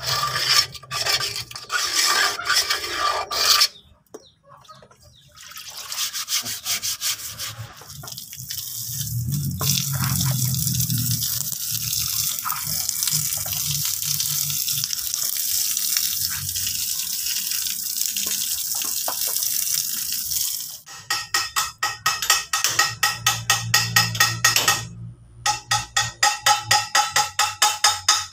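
Hands sloshing and scrubbing in a tray of oil. Then a pressure water jet hisses steadily against the bare rear hub and brake backing plate of a Mitsubishi Canter truck for about twelve seconds, rinsing off the oil. It gives way to a quick run of ringing metal strikes, about three a second, with a short break near the end.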